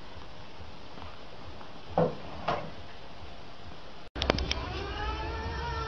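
Two brief sounds about two seconds in, the first falling in pitch. From about four seconds a cat starts yowling in a long, wavering cry.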